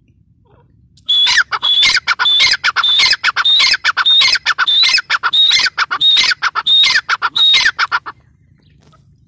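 Grey francolin (teetar) calling loudly: a rapid run of shrill repeated notes, each a high held note dropping sharply in pitch. It starts about a second in and stops about a second before the end.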